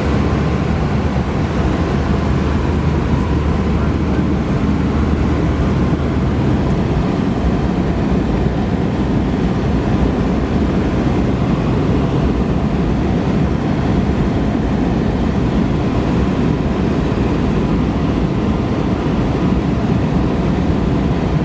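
Steady cabin drone of a Cessna 172's piston engine and propeller in flight, heard from inside the cockpit.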